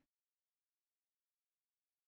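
Silence: no sound at all, the audio fully muted.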